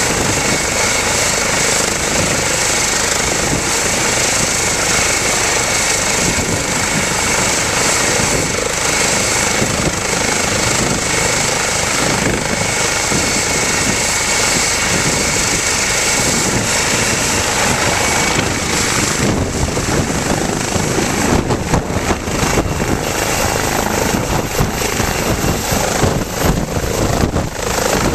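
Eurocopter EC135 twin-turbine helicopter running at flight idle on the ground, a steady turbine whine over rotor noise. About two-thirds of the way in the whine fades and the sound turns gusty and uneven as rotor downwash buffets the microphone while the helicopter lifts off into a hover.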